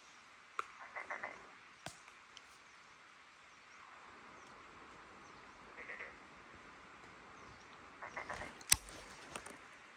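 A frog calling in short bursts of quick croaks, about a second in, again around six seconds in, and near the end. A few sharp clicks stand out, the loudest just before the end.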